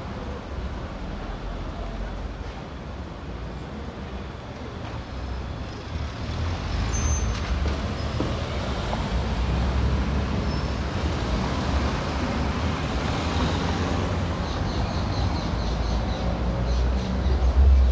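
Street traffic: passing vehicles' engines and tyres make a steady low rumble that grows louder about six seconds in.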